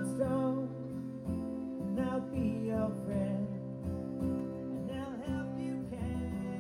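Live solo acoustic guitar being strummed and played, with a man singing over it.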